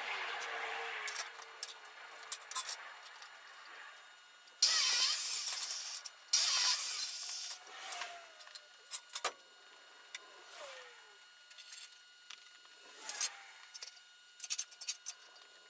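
Hand tool scraping on wood: two long rasping strokes about five and six and a half seconds in, with scattered clicks and knocks of wood and tools around them.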